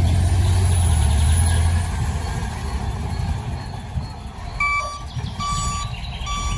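A steady noisy hiss with a low hum during the first two seconds, then, near the end, a run of short electronic beeps like a reversing alarm, repeating a little under a second apart.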